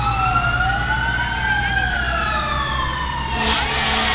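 Several fire truck sirens wailing at once, their pitches slowly rising and falling and crossing one another, over a low engine rumble from passing vehicles.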